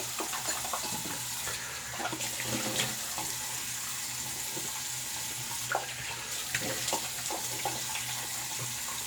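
Bathroom sink faucet running steadily, with small intermittent splashes as water is scooped up to rinse the face after shaving.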